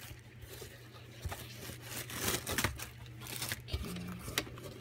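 Crinkling and rustling as plastic packaging and the headphones' fabric-covered hard case are handled, with scattered small clicks, loudest around the middle.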